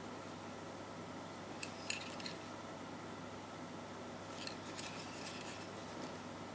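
Faint small clicks and taps from a Walther P99 P.A.K. 9mm blank-firing pistol being handled and turned over in the hand, in two short clusters about two and five seconds in, over a steady low hiss.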